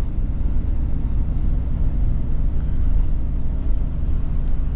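Steady low rumble of a 31-foot RV's engine and tyres on the road, heard from inside the cab while driving.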